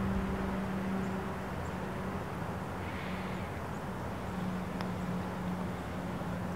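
Steady low drone of a distant engine over outdoor background noise, with a single faint click about five seconds in.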